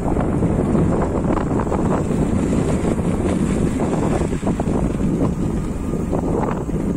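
Wind buffeting the microphone while riding on a moving motorbike, with vehicle and road noise running underneath.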